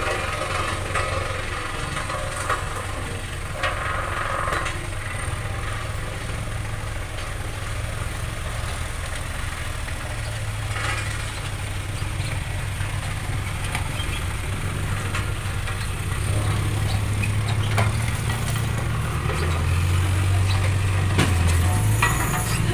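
Dump truck's diesel engine running steadily at a low pitch, growing louder over the last several seconds.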